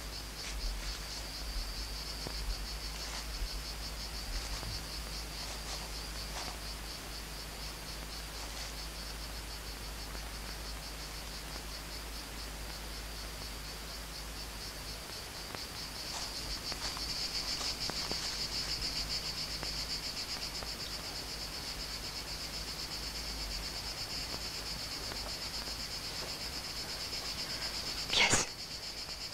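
A steady, high-pitched insect chorus with a fast, even pulsing trill; it grows a little louder after about sixteen seconds. Near the end, a brief loud sharp sound cuts in.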